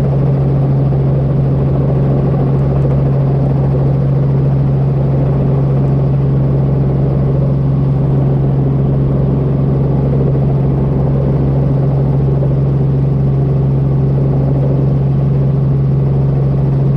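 Helicopter hovering, heard from inside the cabin: a steady engine-and-rotor drone with a strong unchanging low hum.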